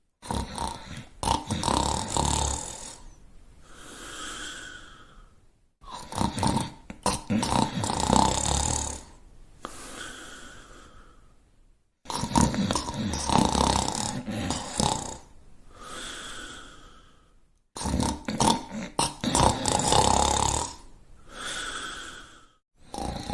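Loud snoring in a repeating cycle about every six seconds, four times over: a long rattling snore, then a softer breathy sound, then a short pause.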